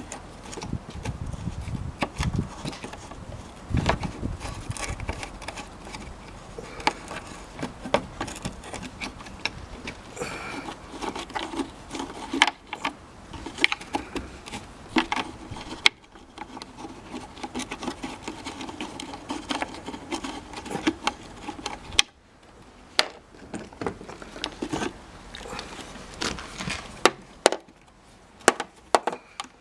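Scattered clicks, knocks and rubbing as the tail-light assembly is handled, fitted back into place and its screw put back in.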